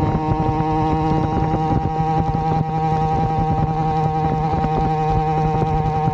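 Two-stroke motorized-bicycle engine (Avenger 85 kit with a Nibbi PE19 carburetor and a welded Gomax expansion pipe) running under way at a steady pitch, holding a constant throttle.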